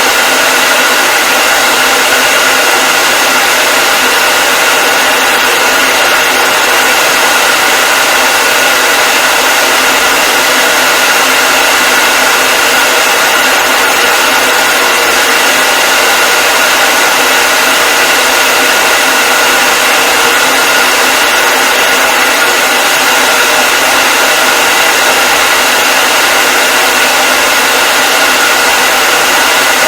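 Hair dryer running continuously: a loud, steady rush of air with a constant high motor whine, unchanging throughout.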